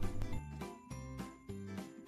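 Background music with a steady beat and jingling bells.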